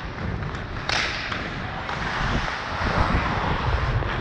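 Ice hockey skate blades carving and scraping the ice, with the steady rumble of air rushing over a helmet-mounted action camera's microphone, and a sudden burst of noise about a second in.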